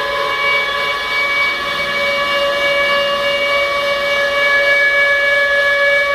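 Civil defence warning siren sounding one loud, sustained tone. The pitch edges slightly upward over the first couple of seconds, then holds steady.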